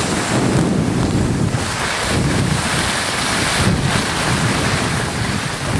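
Wind buffeting a camcorder microphone: a loud, rough rush of noise that swells and dips unevenly.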